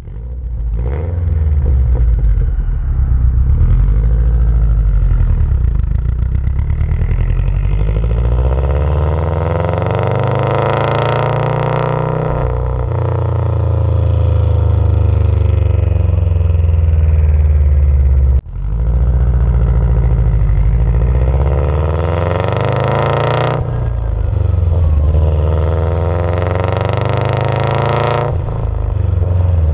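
2011 Subaru WRX STI's turbocharged flat-four exhaust note through an Invidia Q300 cat-back exhaust, heard close at the tailpipes while driving: the pitch climbs with the revs and drops back at each upshift, several times over, with short hissing bursts at some of the shifts.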